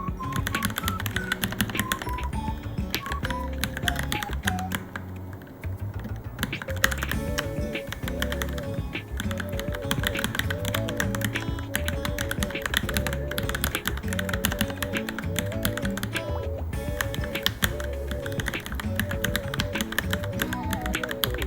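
Rapid typing on a Varmilo Minilo mechanical keyboard, a dense run of keystroke clacks with a short lull about five seconds in, over background music.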